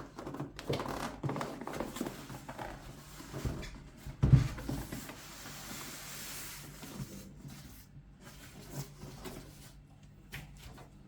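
Cardboard box and packaging of a small PC case being handled and opened: scattered knocks and rustles, a heavy thump about four seconds in, then a longer smooth rub of packaging sliding.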